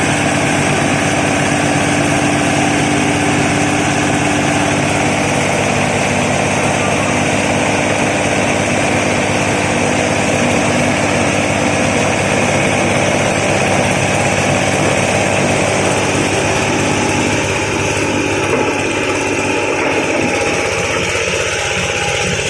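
Corn cob grinding machine running steadily with a loud, dense mechanical din and a fast, even pulsing drone. Its lower tones thin out slightly near the end.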